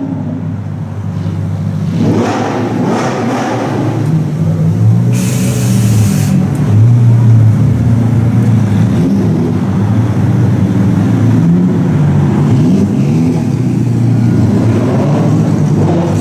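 Lamborghini V12 engines running at low revs and being blipped as the cars pull away slowly, the exhaust note rising and falling in pitch.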